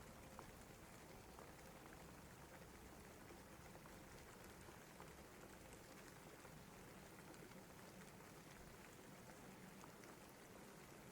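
Faint, steady rain, an even hiss with scattered small drop ticks.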